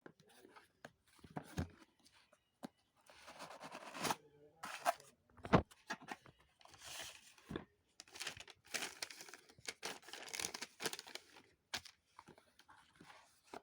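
Packaging being torn open and crinkled by hand: irregular rustling, ripping bursts with scattered clicks.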